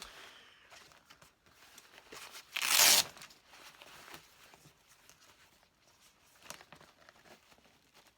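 Packaging being torn off by hand: one loud ripping tear lasting about half a second, around three seconds in, with light rustling and handling clicks before and after.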